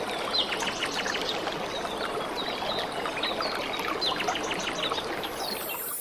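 Flowing, trickling water with many birds chirping, their calls short falling notes.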